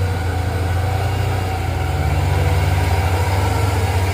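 Heavy diesel truck engine running steadily with a deep, even drone, growing slightly louder toward the end.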